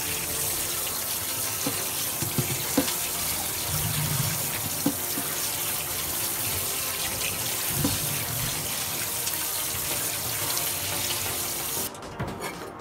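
Kitchen tap running a steady stream of water over raw chicken pieces in a mesh strainer in a stainless steel sink, with a few soft knocks as the meat is moved. The running water cuts off near the end.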